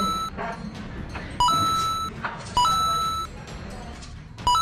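Electronic two-note beep, a short lower note stepping straight up to a longer higher one, heard three times: about 1.5 s in, about 2.6 s in, and near the end. It is an edited-in chime that marks the eating-challenge score ticking up.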